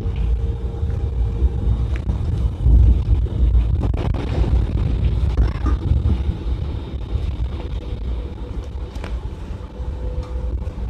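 Steady low rumble of a bus engine and road noise, heard from inside the bus, with a few brief clicks or rattles.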